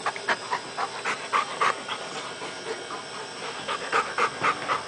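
Dog panting in quick, short breaths, about three a second.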